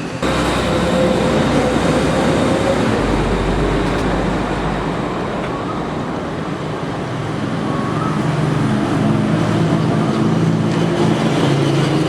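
Street traffic: vehicle engines running by, with a deeper engine rumble about three to five seconds in.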